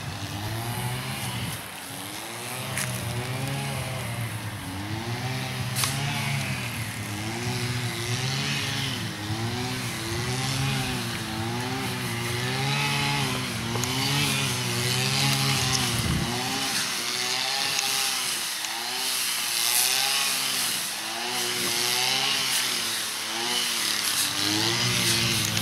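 Petrol engine of a grass-cutting machine revving up and down over and over, its pitch rising and falling about once a second.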